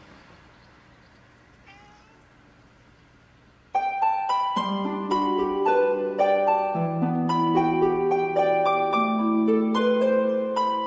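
Low background noise with one faint short call near two seconds. About four seconds in, background music starts: plucked harp-like notes in a running melody.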